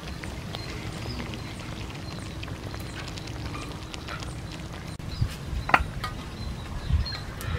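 Fish stew simmering in a wok over a wood fire, with small pops and crackles. About five seconds in, a metal spoon knocks and scrapes against the wok a few times as the stew is ladled out.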